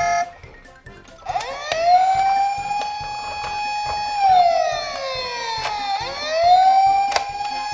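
Electronic wailing siren from a toy emergency vehicle: starts about a second in, rises in pitch, holds, slides down, then rises and holds again. A sharp click about seven seconds in.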